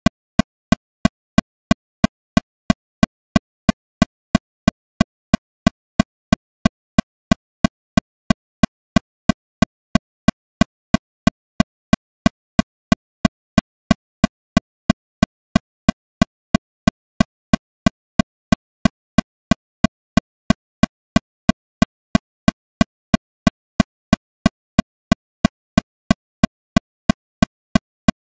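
Metronome clicking steadily at 182 beats per minute, about three sharp, evenly spaced clicks a second.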